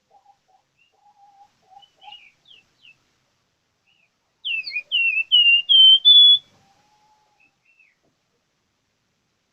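A flamboyan songbird singing: a few faint, scattered chirps, then about halfway through a loud run of about six clear whistled notes, each slurring downward, the last ones slightly higher. A soft low whistle sounds faintly under the opening chirps.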